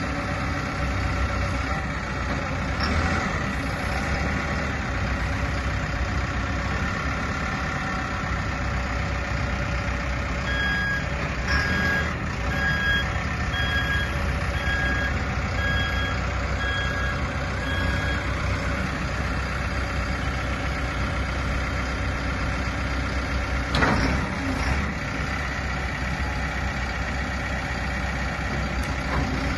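A CAT 424 backhoe loader's diesel engine runs steadily. In the middle of the stretch its reversing alarm beeps about ten times, a little faster than one a second. A single knock comes about three-quarters of the way through.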